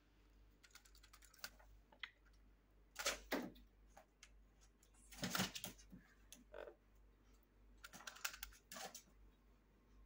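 Scattered light taps and scuffles, with a few short, louder rustling bursts, from a blue-fronted Amazon parrot shifting its feet on a plastic printer lid and flapping its spread wings.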